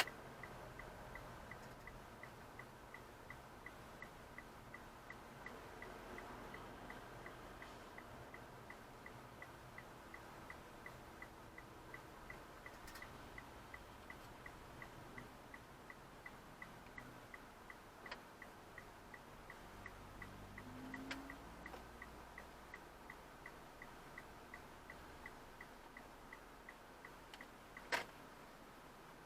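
Steady, rapid mechanical ticking, about three ticks a second and very even, with a single louder click near the end.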